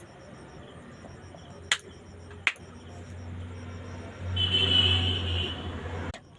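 Two sharp cracks about a second apart, joints being cracked during a massage. A steady low hum follows; it grows louder about four seconds in and stops suddenly near the end.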